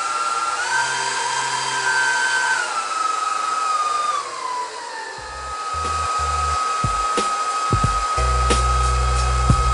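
Twin 90 mm electric ducted fans with 12-blade rotors running with a smooth high whine. The pitch steps up once, then steps down twice and drops before settling steady as the throttle is moved. Low thumps and clicks join underneath in the second half.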